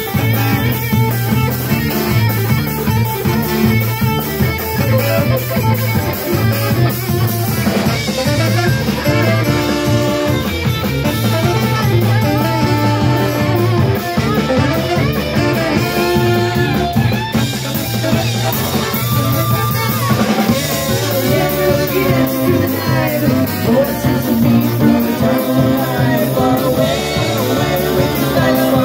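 Live band music: drum kit, electric guitar, sousaphone and two saxophones playing a steady groove, with saxophone lines over the beat. A woman's voice comes in near the end.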